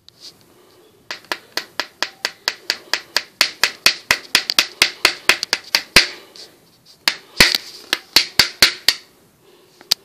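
A rapid run of sharp taps, about four or five a second, stopping after about five seconds, then a second shorter run of taps a second later and a single tap near the end.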